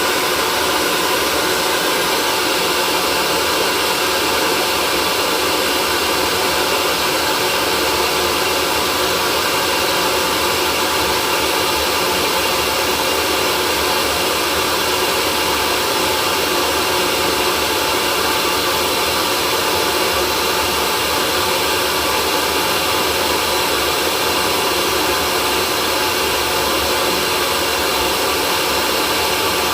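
Hair dryer running steadily at one setting: a constant rush of blown air with a steady motor whine underneath.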